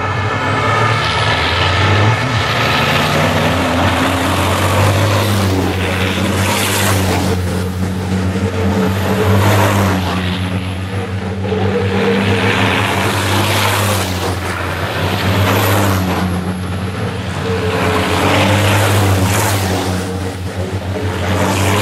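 Big diesel engines of racing trucks running at speed past the track edge, a steady low drone that swells and eases as trucks come by. A faint high whistle glides down in pitch twice.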